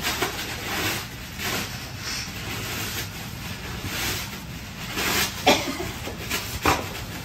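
A dog chewing and tugging at a fabric toy on its cushion bed: scattered soft rustles and knocks, a few sharper ones in the second half.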